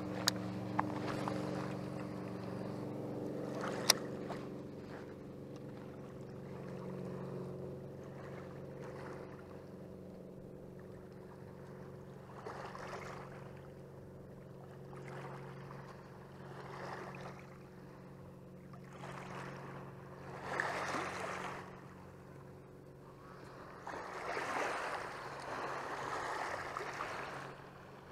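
Steady low drone of a boat motor out on the lake, with small waves washing over the rocky shoreline in bursts every few seconds. A single sharp click comes about four seconds in.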